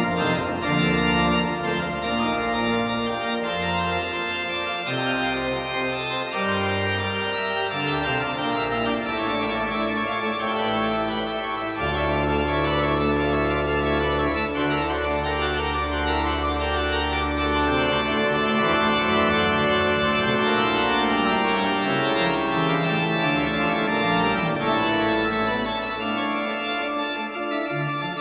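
Background music: slow, sustained organ-like chords over long-held low bass notes, with one deep bass note held for several seconds in the middle.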